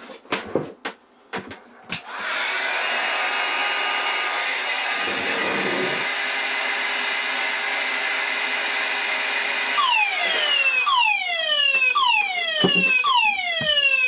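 A few handling clicks, then a handheld hot-air blower runs steadily, heating an ESP fixed heat detector. About ten seconds in, the detector trips: a Banshee sounder starts its slow whoop alarm, repeated falling sweeps, and the blower cuts off just after.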